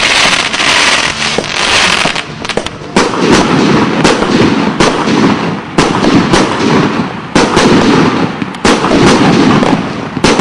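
Fireworks going off in a dense, continuous barrage: steady crackling with many sharp bangs throughout.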